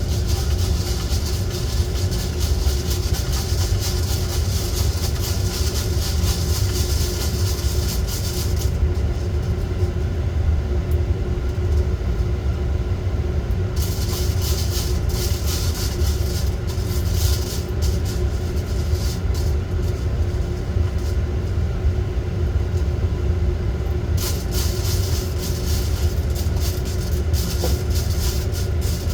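Coffee roaster running mid-roast: a steady low rumble and hum from the drum and fan, with a high crackling hiss that comes and goes three times.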